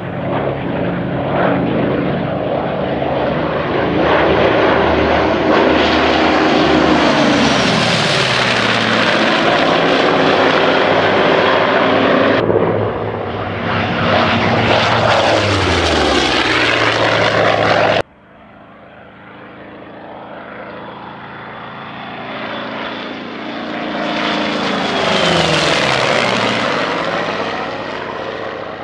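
Big radial-engined WWII warbirds making low, fast flybys one after another: a twin-engine F7F Tigercat, then an F8F Bearcat, then a Skyraider. Each engine-and-propeller note swells as the plane approaches and drops in pitch as it passes. The sound is cut off abruptly twice between passes.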